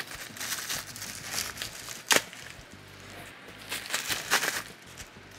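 Packaging rustling and crinkling in irregular bursts as camera accessories are handled and unwrapped, with a sharp click about two seconds in.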